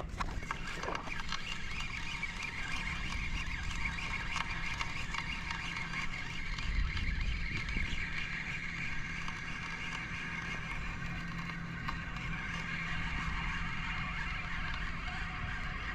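Kayak under way: the steady whirr of its drive with water running along the hull, a little louder about seven seconds in.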